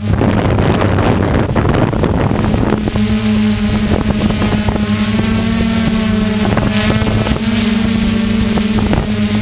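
Electric motors and propellers of a DJI F550 hexacopter humming steadily, heard from the drone's own camera, with wind rushing over the microphone. About three seconds in the wind noise drops and the motors' layered hum comes through clearly.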